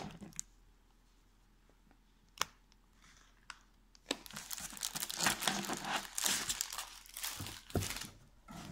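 Clear plastic wrapping on a sealed scrapbooking paper pack crinkling as it is handled by hand, starting about four seconds in after a quiet stretch with two short taps.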